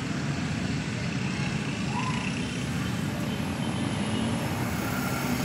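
Steady rumble of city traffic, vehicles heard together as one continuous wash of noise.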